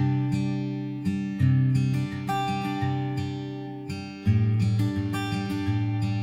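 Background music: acoustic guitar plucking and strumming chords, each note or chord fading after its sharp attack.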